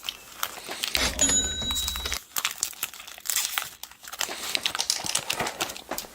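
Foil wrapper of a Pokémon trading-card booster pack being crinkled and torn open, a long run of irregular sharp crackles.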